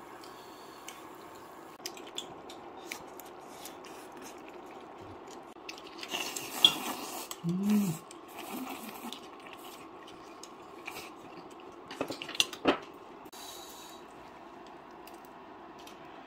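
Eating at a table: chopsticks and tongs clicking against bowls and a metal pan, with a noodle slurp about six seconds in and a brief hum from the eater, over a faint steady hum.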